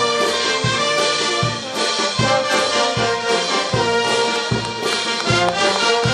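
Festive brass band music: sustained horn tones over a steady bass drum beat, about one beat every three quarters of a second.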